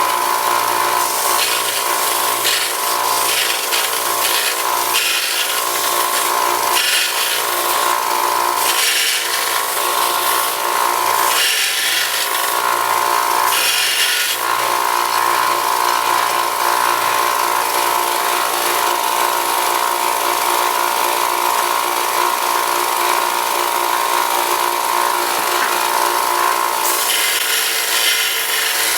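A belt sander running steadily while brake pad material is sanded and its edges bevelled. Repeated short rasping surges come in the first half as the piece is pressed to the belt, then it runs more evenly.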